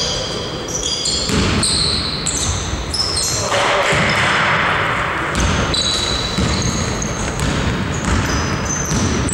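Basketball game play: sneakers squeaking on the gym floor in many short high chirps, with the ball bouncing on the court and players calling out.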